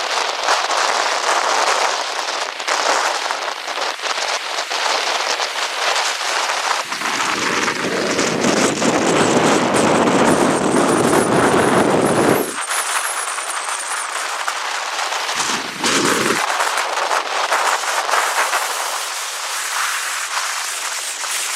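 Heavy rain and strong wind with a crackly patter, with stretches of deep wind buffeting on the microphone that start and stop abruptly.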